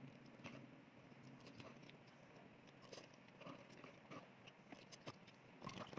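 Faint eating sounds: a spoon clicking against a soup bowl amid quiet chewing of noodle soup, with scattered small clicks.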